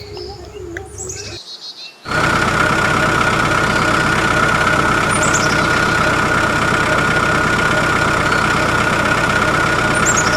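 Birds chirp softly, then about two seconds in a mini tractor's small engine starts running abruptly. It goes on as a loud, steady run with a high whine over it, with bird chirps still heard twice over it.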